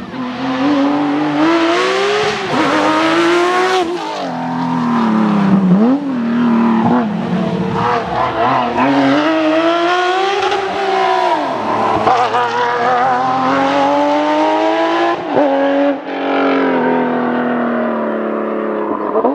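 Porsche 911 GT3 rally car's flat-six engine at full throttle, its pitch climbing through the revs and dropping sharply several times as the driver shifts or lifts off for corners.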